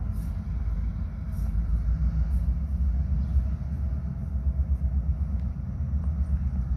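Steady low rumble of a diesel locomotive's engine running.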